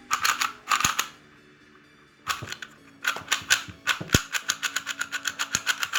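A new YJ 3×3 plastic speed cube being turned fast by hand, its layers clicking in quick runs. There is a short burst at the start, a pause of about a second, then steady rapid turning from about two seconds in.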